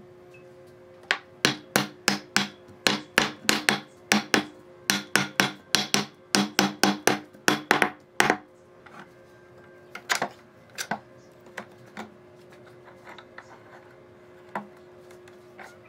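Hammer blows knocking on thick wooden boards to drive a glued edge joint closed: a quick run of some two dozen sharp, ringing knocks at about three a second, ending about eight seconds in, then a few scattered lighter knocks.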